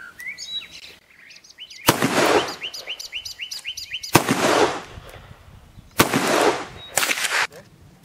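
Allen & Thurber .32 calibre percussion pepperbox revolver firing four black-powder shots about a second and a half to two seconds apart, the last two closer together, each with a short echoing tail. A bird sings a quick run of repeated chirps between the first two shots.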